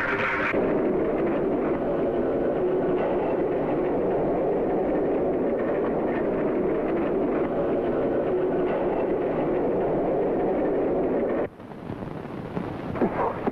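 Hooves of a galloping horse in a pursuit, a steady dense rumble that cuts off sharply about eleven seconds in, with a different, gustier sound following.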